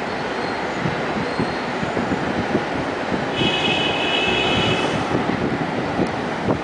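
Elevated rubber-tyred metro train running on its concrete guideway: a steady, dense running noise. A brief high whine of several close tones sounds about halfway through.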